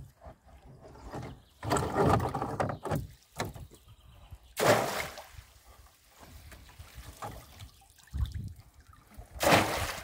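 Lake water splashing and pouring off a net fish trap as it is hauled up on its rope beside a rowboat, in several separate bursts, the loudest about halfway through and again near the end.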